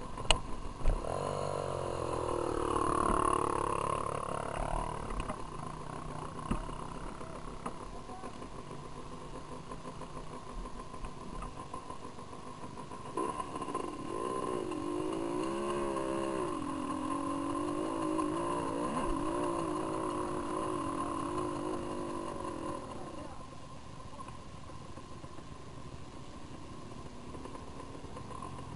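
Trail motorcycle engines running and revving, their pitch rising and falling, briefly a couple of seconds in and again for a longer stretch from about halfway, over a steady engine drone. Two sharp knocks come right at the start.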